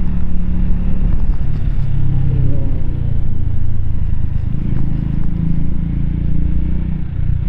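Keeway K-Light 125's small air-cooled V-twin engine running under way, heard from the rider's seat. The engine note eases off about two seconds in and picks up again past the middle.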